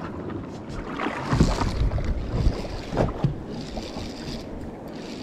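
Wind buffeting the microphone and water slapping against the side of an anchored boat on choppy sea, with a few heavier gusts and slaps in the middle.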